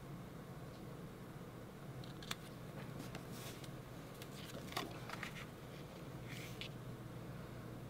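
Cardstock and paper pieces being slid and set down on a scrapbook layout: a few soft rustles and light taps, with a couple of sharper clicks, over a low steady hum.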